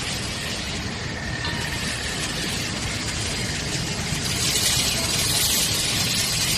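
Steady industrial machine noise of a shell core moulding line running, with a hiss that grows louder about four and a half seconds in.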